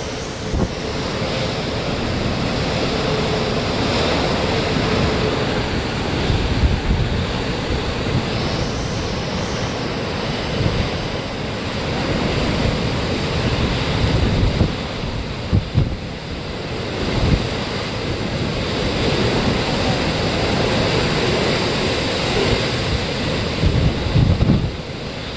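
Hurricane wind and rain: a steady noise that swells in gusts, with the wind buffeting the microphone in low rumbles several times.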